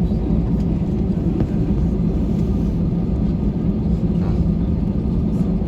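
Airbus A321 jet engines and airframe rumble heard from inside the passenger cabin: a loud, steady, deep roar with no let-up.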